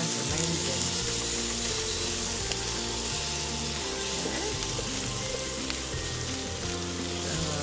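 Sliced onions and garlic sizzling in hot oil in a pan while they are stirred with tongs, under soft background music.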